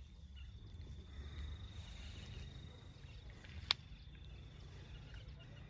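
Insect trilling steadily at one high pitch over a low rumble, with one sharp click about three and a half seconds in.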